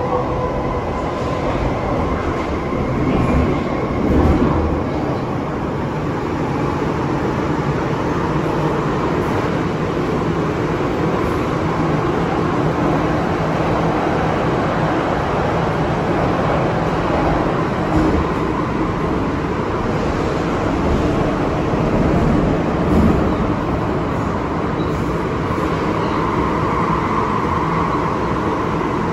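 Inside an MTR M-train car running at speed: a steady rumble of wheels on rail. The traction motors' whine fades out over the first few seconds and swells up again near the end.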